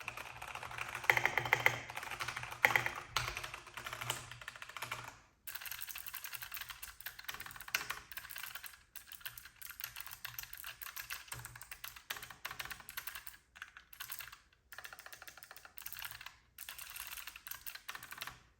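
Fast typing on Keychron mechanical keyboards, the low-profile K5 SE with clicky Gateron Blue switches and the K8 Pro with Gateron Brown switches, compared in turn. The keystrokes come in several bursts with short pauses, loudest in the first five seconds or so.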